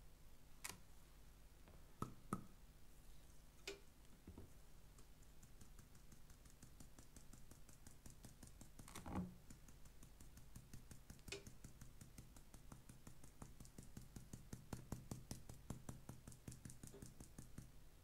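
Glass sugar shaker with a metal perforated lid shaken over a pancake: a quick run of faint ticks, densest near the end, with a few sharper knocks as it is picked up and handled.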